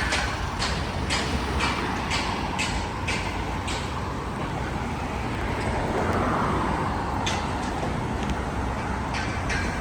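Street traffic running steadily, with one vehicle passing about six seconds in. Footsteps on pavement at a walking pace, about two a second, stop partway through and resume near the end.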